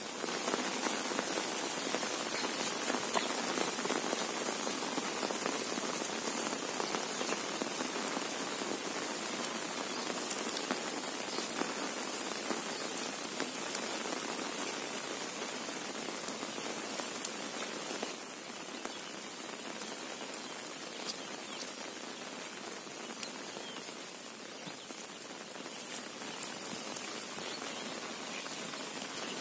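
Monsoon rain falling on an umbrella held overhead and on the wet field around it: a steady hiss dotted with sharp drop ticks. It eases a little after about eighteen seconds.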